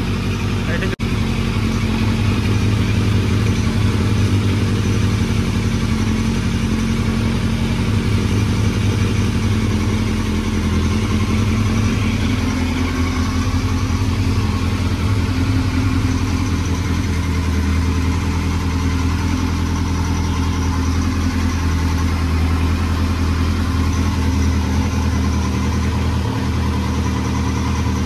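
Kawasaki Z900's inline-four engine idling steadily as it warms up fresh oil after an oil change, its pitch shifting slightly partway through.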